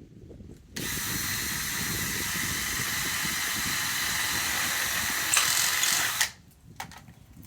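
Power drill with a 1/4-inch bit running steadily for about five seconds as it bores a hole through a mushroom-jar lid laid on a 2x4. It gets a little louder near the end, then stops suddenly.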